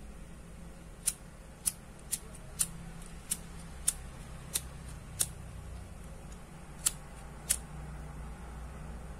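A lighter clicking about ten times, sharp separate clicks roughly every half second with a pause near the end, as it is worked against a cut paracord end to melt and seal it.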